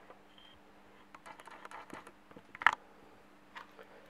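Light clicks and taps of a brass euro lock cylinder and small metal tools being handled on a plastic board, with one sharper clack about two-thirds of the way through.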